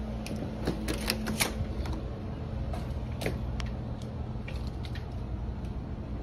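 A door's deadbolt and lever handle clicking and rattling in a quick cluster about a second in as the door is unlocked and opened, then scattered lighter taps and clicks, over a steady low hum.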